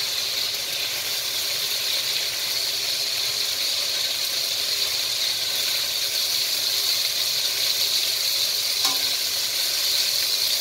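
Chicken strips sizzling steadily in a hot non-stick pan, with metal tongs clicking and scraping against the pan as pieces are lifted out.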